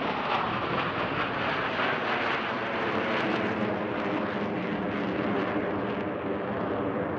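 Steady jet noise from a formation of F/A-18 Super Hornet fighter jets flying overhead: a wide rushing sound with a faint engine hum beneath it.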